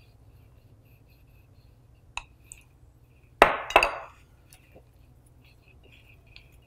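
Glass bowls and utensils clinking while gram flour is added to a glass mixing bowl: one sharp tap about two seconds in, then a louder double clink a little past the middle.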